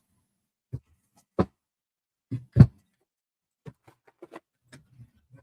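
Tarot cards being handled: a few separate taps and knocks, the loudest about two and a half seconds in, then a run of faint small clicks.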